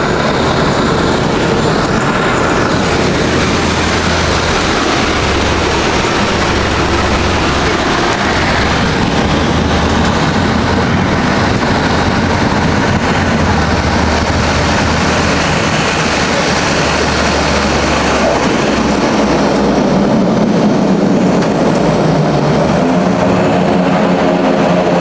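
Cabin noise of a de Havilland Canada DHC-6 Twin Otter during landing: its twin Pratt & Whitney PT6A turboprop engines and propellers give a loud, steady rush. About 20 seconds in the deep rumble falls away and a pitched propeller hum comes through.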